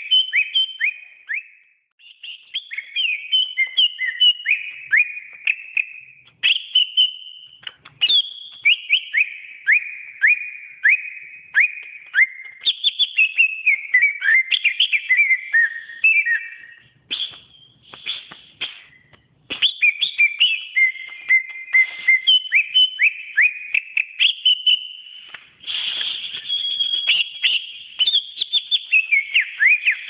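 Green leafbird (cucak ijo) singing a long, varied song of rapid whistled notes, many sweeping quickly up or down in pitch. The song is broken by short pauses, the longest about two seconds past the middle.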